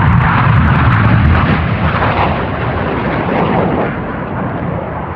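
Loud roar of several BAE Systems Hawk T1 jets passing low, with a heavy rumble that rises suddenly just before and then slowly eases.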